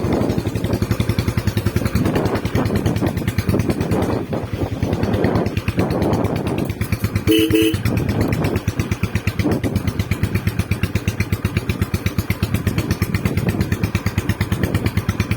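Royal Enfield Bullet BS6 single-cylinder engine idling through its stock bent exhaust pipe with a steady, even thump, swelling briefly a few times as it is blipped. Two short horn beeps come about seven seconds in.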